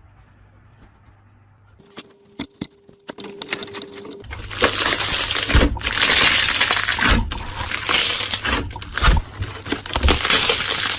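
Slime being squeezed and kneaded close to the microphone, starting about four seconds in: a loud, dense crackling with a few low thuds. Before that, a few faint clicks.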